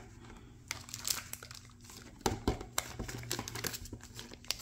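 Crinkling plastic wrapping and rustling cardboard and booster-pack packaging being handled, in irregular small crackles and taps.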